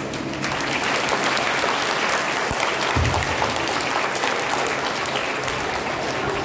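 An audience claps and applauds, starting about half a second in and going on steadily.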